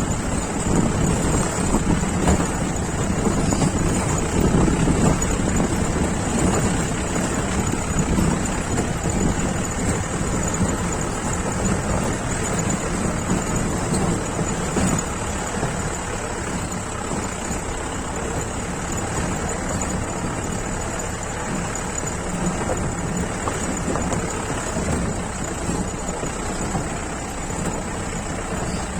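Jeep engine running as the vehicle is driven off-road, a steady low rumble that eases off a little after about ten seconds, with a thin high-pitched hiss above it.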